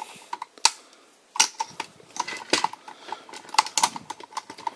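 Hard plastic toy parts clicking and knocking as the head piece of a Drive Head transporter robot toy is fitted and snapped into place. There are a handful of irregular sharp clicks, the clearest a little over half a second in and around one and a half seconds.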